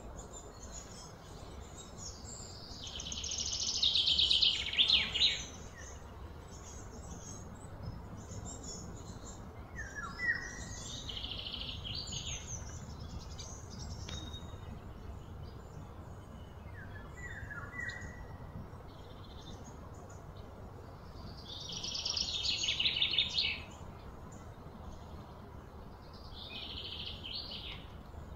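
Birds singing: two long runs of rapid, high trilling notes, one a few seconds in and another about three-quarters through, with shorter chirps between, over a steady low background noise.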